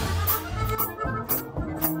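Live norteño band playing an instrumental passage: accordion carrying the melody over bass and a drum kit, with drum strikes about twice a second.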